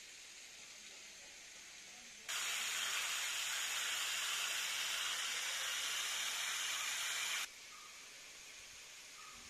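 Water spraying in a thin jet from a small irrigation emitter on a hose line: a steady hiss that starts abruptly about two seconds in and cuts off abruptly about five seconds later.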